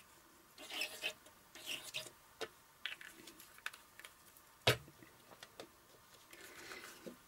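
Paper and card being handled as a glued sheet of wood-look paper is laid into a card and pressed down: short rustles and rubbing, scattered light taps, and one sharper knock past the middle.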